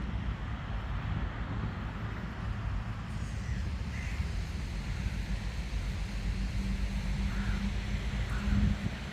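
Crow cawing a few times from about three seconds in, short harsh calls over a steady low rumble of wind and waves, with a low hum swelling briefly near the end.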